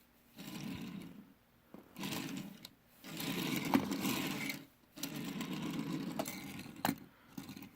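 Hot Wheels diecast 2015 Mustang toy cars being rolled along a surface in four separate runs, each lasting about one to two seconds. Their small wheels make a rumbling whir, tested to see which car rolls better.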